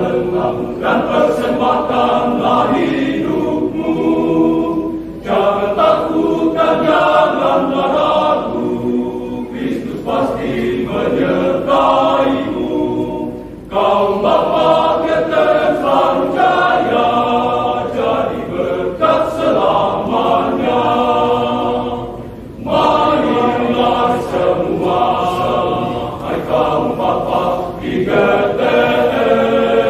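Men's choir singing in several voice parts, phrase after phrase, with a brief breath break about every eight to nine seconds.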